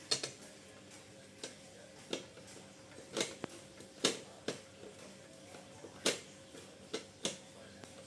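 Irregular sharp clicks and knocks of copier parts and tools being handled during disassembly, about ten in all, over a faint steady hum.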